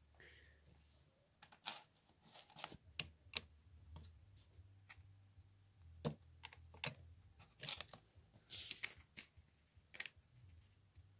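LEGO bricks being handled and pressed onto a model: a scatter of small, sharp plastic clicks, with a brief rustle of pieces about three quarters of the way through.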